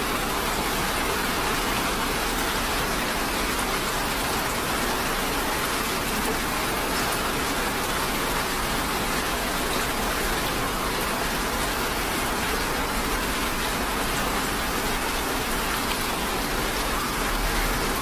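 Steady rain falling: an even, unbroken hiss of many drops with no pauses.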